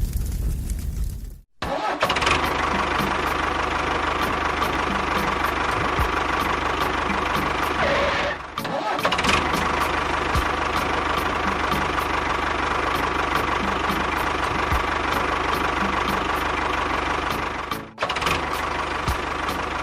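Small engine running steadily with a light rapid ticking, cutting out briefly three times.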